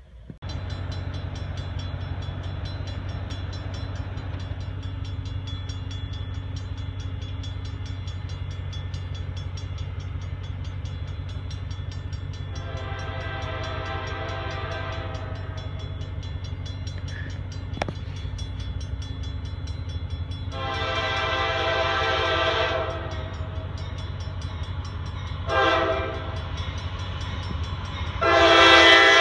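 Norfolk Southern diesel locomotive horn sounding the grade-crossing signal as the train approaches: two long blasts, a short one, then a long one that runs on. Under it are a steady low rumble and the rapid ringing of the crossing's warning bell.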